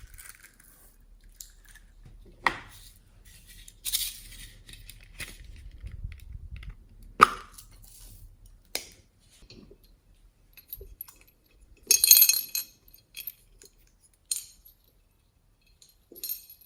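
Scattered clinks and taps of small containers and utensils being handled while slime ingredients are prepared, with a short rattling clatter about twelve seconds in.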